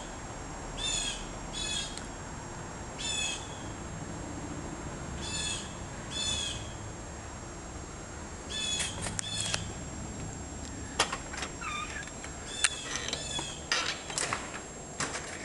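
A bird calling outdoors in short repeated calls, about one every one to two seconds, with a quick run of three calls near the middle. In the last few seconds, several sharp clicks and knocks.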